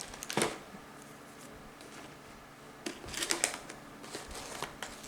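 Hands handling ribbon and gift-basket materials: a short crackly rustle about half a second in, then a busier run of rustling and crackling from about three seconds in.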